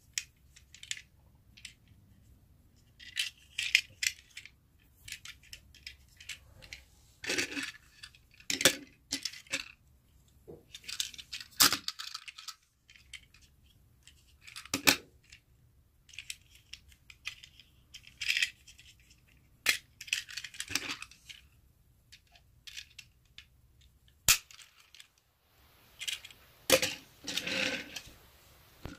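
Hard plastic Plarail toy freight wagons being handled, giving irregular clicks, taps and clatters in short clusters; near the end the wagons are set on the plastic track.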